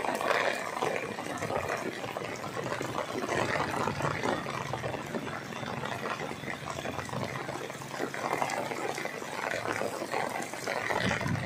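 Heavy rain pouring down, a dense steady hiss of water that swells and eases in loudness.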